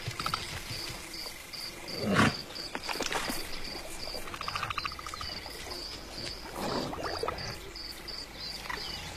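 Savanna ambience: an insect chirping in a steady pulse about two or three times a second, with scattered animal calls, a louder one about two seconds in sliding down in pitch and a short buzzy call near the middle.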